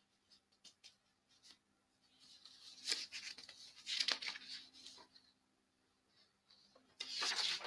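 Faint rustling and scraping handling noise in several short bursts, the strongest about three and four seconds in and again near the end, over a faint steady low hum.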